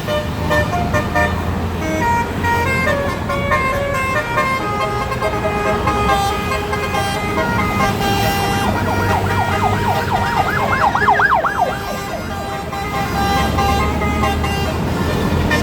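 Tour bus basuri telolet horn playing a melody of quick stepped notes over the low rumble of the bus engine. From about nine seconds in, a fast warbling siren-like wail joins it.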